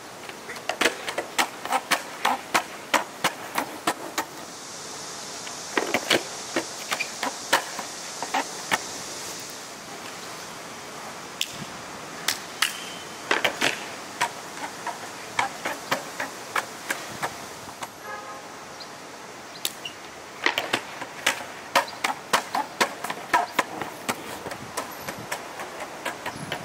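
Skateboard wheels rolling over stone paving tiles, clacking over the seams in quick runs of sharp clicks, several a second, with pauses between runs.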